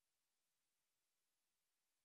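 Near silence: only a very faint, even hiss, with no other sound.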